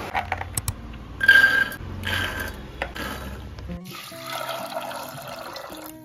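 A few clicks and a brief ringing tone, then background music with plucked guitar notes starts about four seconds in.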